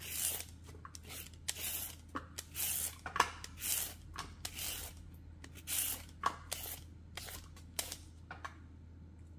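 Vegetable peeler scraping strips off a raw carrot: a run of short, quick swishing strokes about one every half second, stopping about a second before the end.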